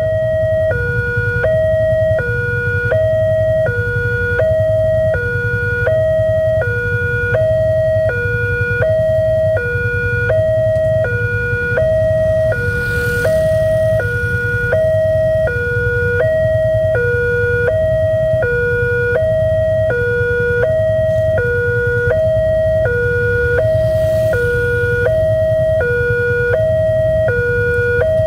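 Alkmaar-type railway level crossing's electronic warning alarm sounding a steady two-tone alternation, high and low, about once every 1.4 s, with a low rumble underneath. It signals that the barrier is down and a train is approaching.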